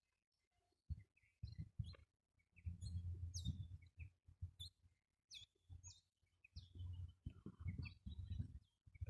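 Birds chirping: scattered short high chirps and quick falling whistles. Low gusts of wind rumble on the microphone now and then.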